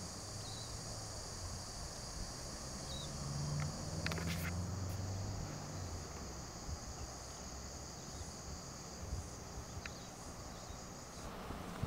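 Steady, high-pitched insect chorus that cuts off abruptly near the end. A low drone swells and fades in the middle under it.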